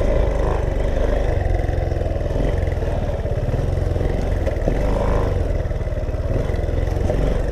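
Dirt bike engine running steadily while the bike is ridden over rough ground, with wind rumbling on the microphone.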